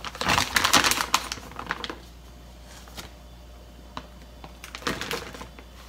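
Plastic bag of shredded cheese crinkling and crackling as a hand reaches in and pulls cheese out, loudest in the first two seconds. A few soft ticks follow, and another brief crinkle comes near the end.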